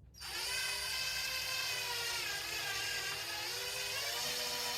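Electric drill running steadily as it bores through an RC truck's suspension A-arm, enlarging the hinge-pin hole to take thicker hinge pins. Its whine dips slightly in pitch midway, then picks back up.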